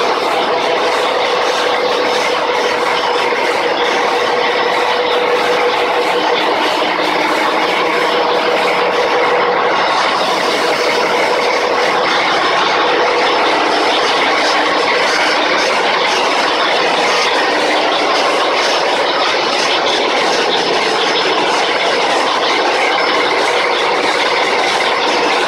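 Large marine diesel engines running in a ship's engine room: a loud, steady mechanical din with no let-up, and a steady hum standing out over it for the first ten seconds or so.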